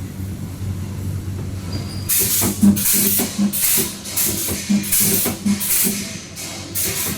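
XY-axis automatic spot welding machine working through a run of welds. A steady low hum gives way, about two seconds in, to short repeated bursts, roughly one and a half a second, each a low buzz with a sharp hiss of air as the electrodes cycle.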